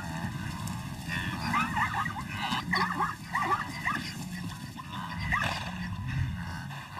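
A run of short, high, whining animal calls, bunched together a couple of seconds in with one more about five seconds in, over a low steady hum.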